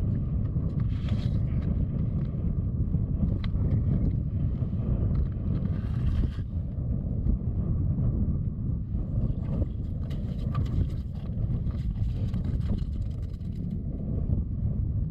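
Wind buffeting the microphone: a steady, gusting low rumble, with a couple of faint ticks.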